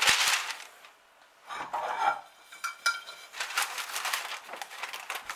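Baking paper crinkling as it is laid over a cake, then a ceramic plate set down on top of it with a light clink, followed by small knocks and scraping as the plate is shifted on the paper.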